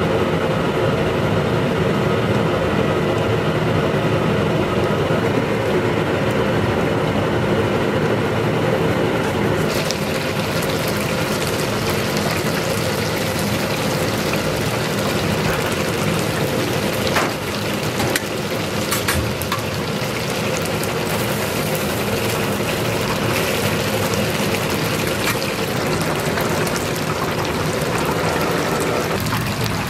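Battered strips frying in a commercial deep fryer: a steady sizzle and bubbling of hot oil, with a couple of sharp clicks near the middle.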